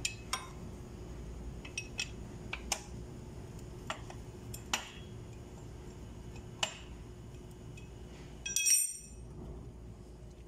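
Scattered metallic clinks of an 8mm socket wrench working the bolts of a scooter's crankcase cover. Near the end comes a louder clatter of metal with a brief ringing.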